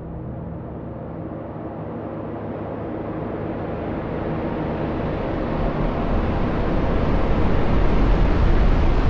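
Cinematic riser sound effect: a rumbling, airy noise swell that grows steadily louder and brighter, building up toward a bass drop.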